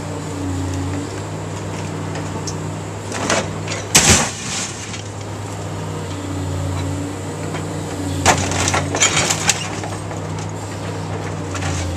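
Scrapyard crane's engine running steadily under load while its grab crushes a demolition-derby car's body: crunching metal and cracking, breaking glass. There are a few cracks about three seconds in, the loudest crash at about four seconds, and another run of crunches from about eight to nine and a half seconds.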